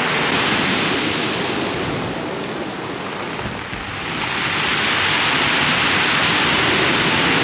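Ocean waves breaking and washing up the beach, a loud steady rush that eases off in the middle and swells again as the next wave comes in.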